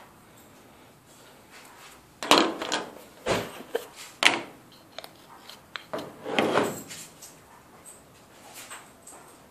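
A few sudden knocks and rubbing sounds from small objects being handled. The sharpest knocks come about two and four seconds in, and a longer scraping rub follows at about six and a half seconds.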